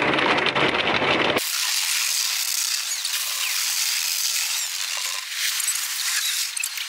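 Automatic car wash heard from inside the car: a deep, rumbling noise of the wash machinery and water for the first second and a half, then a steady high hiss of water spraying on the windows.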